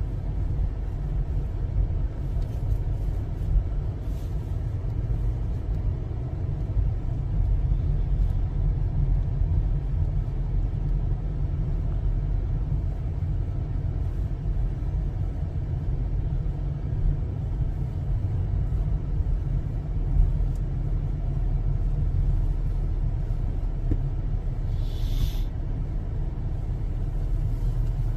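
Steady low rumble of a car driving slowly, heard from inside the cabin, with a brief hiss a few seconds before the end.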